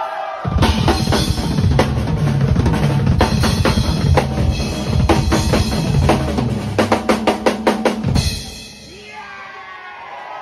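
Drum kit solo on bass drum, snare, toms and Zildjian cymbals, coming in hard about half a second in and building to a fast run of strokes before breaking off at about eight seconds. Cymbals ring on afterwards under several voices shouting.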